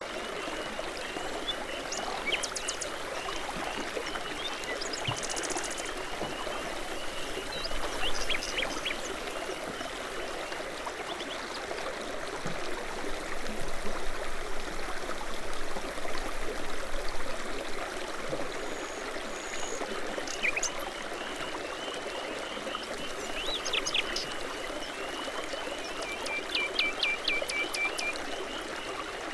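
Babbling brook: shallow water running and trickling steadily over stones. Songbirds sing over it with short high chirps and trills at intervals, and a quick run of repeated notes near the end.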